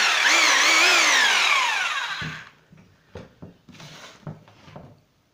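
Damier RH8402 rotary hammer drill run briefly with no load: the motor's whine wavers up and down in pitch, then winds down with a falling pitch, dying away about two and a half seconds in. A few light knocks from handling the drill follow.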